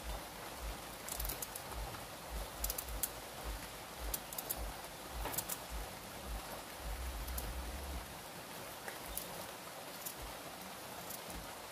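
Knife cutting carrot: irregular sharp clicks and knocks, with low knocks that stop about eight seconds in, over a steady hiss.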